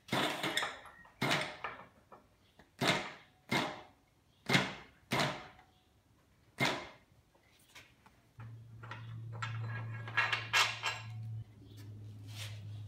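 Heavy steel firehole door being worked off the boiler on a chain hoist: a series of sharp metallic clanks, roughly one a second, each ringing briefly. From about eight seconds in, a steady low hum sets in.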